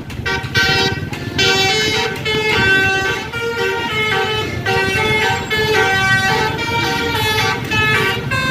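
Bus telolet horn, a multi-tone air horn, playing a tune of short held notes that step quickly from pitch to pitch, over a low rumble.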